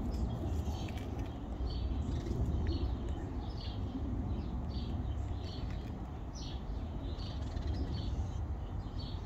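A songbird calling repeatedly in short chirps, about one or two a second, over a steady low outdoor rumble.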